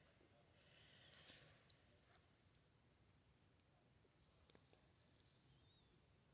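Faint insects trilling, one high trill repeating in even pulses about every second and a half, with two faint clicks about two seconds in.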